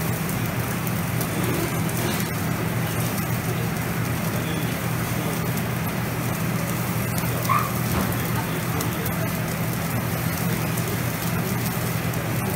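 Lo mein noodles and frozen meat slices sizzling on a hot flat-top griddle, a steady crackling hiss, over a steady low hum.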